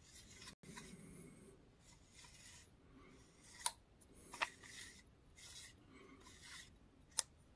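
Fingers turning and rubbing the rings on the housing of a vintage Boulin Strobomeca stroboscopic tachometer, giving soft scraping sounds, with three sharp clicks: two close together midway and one near the end.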